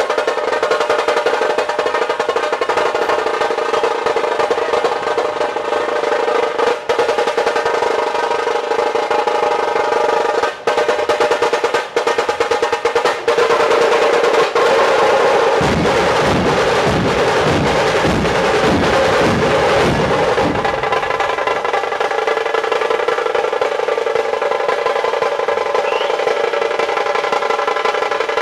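Dhol tasha ensemble playing a fast, continuous drum roll of barrel dhols and tashas. About fifteen seconds in, the dhols strike a run of about eight heavy beats together, roughly two a second, for some five seconds, then the fast roll carries on.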